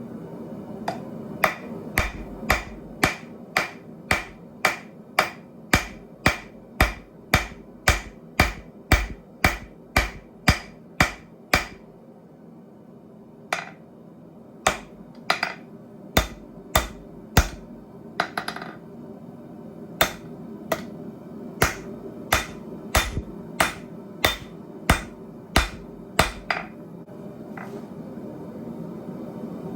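Blacksmith's hammer striking hot steel on an anvil, about two sharp ringing blows a second. The blows come in runs with short pauses between.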